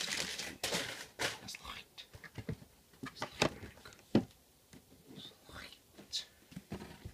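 Crumpled wrapping paper from a sneaker box rustling and crinkling as it is pulled away. Then come scattered knocks and taps of handling, the sharpest a thump about four seconds in.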